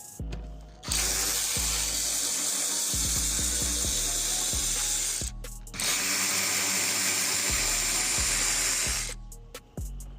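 A handheld power tool running in two long runs of about four and three seconds, with a short stop between them, over background music with a steady beat.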